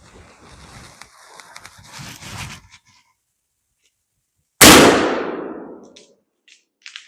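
Soft rustling for the first couple of seconds, then a single loud gunshot about four and a half seconds in, its report dying away over about a second and a half, followed by a few faint clicks.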